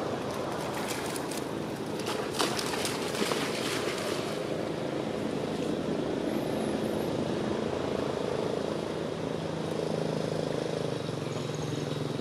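A motor engine hums steadily in the background, its hum clearer in the second half. A few short, sharp sounds come between one and four seconds in.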